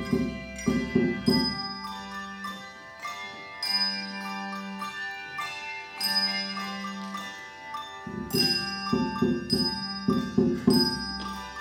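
A handbell choir playing a tune: handbells struck together in chords, each note ringing on after the strike. The playing is busiest and loudest in the first second or so and again from about eight seconds in, with quieter held chords between.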